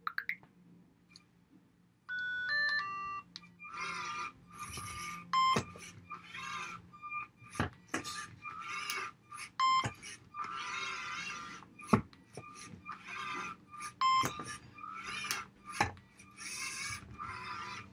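A LEGO Mindstorms Robot Inventor robotic arm running its program: a short run of stepped beeps about two seconds in, then the arm's electric motors whirring in many short bursts as it rotates, lifts and closes its gripper, with clicks between moves.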